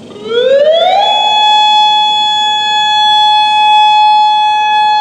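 Federal Signal Modulator 8032B electronic warning siren sounding its alert tone: the pitch rises over about the first second, then holds one loud, steady tone.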